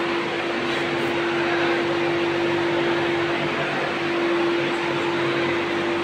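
A steady mechanical hum with one constant mid-pitched drone, unchanging throughout.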